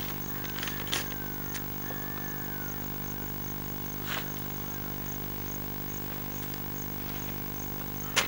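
A steady low hum made of several fixed tones, with a few sharp clicks: about one second in, about four seconds in, and a louder one right at the end.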